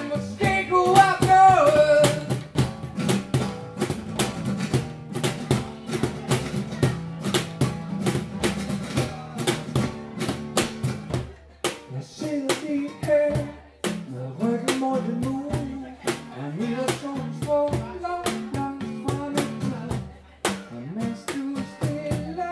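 Live band playing a song: a man singing into a microphone over acoustic guitar and a drum kit keeping a steady beat.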